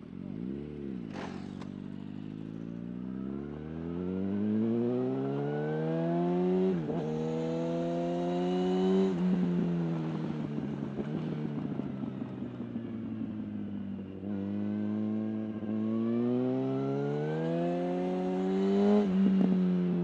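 Yamaha R1 sportbike's inline-four engine pulling away. It gives a quick blip of revs, then its note climbs through the gears with sudden drops at two upshifts. It eases off for a few seconds mid-way, then climbs again before another shift near the end.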